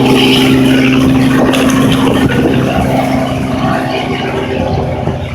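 Tour helicopter's engine and rotor running with a steady hum, growing fainter in the second half as it moves away.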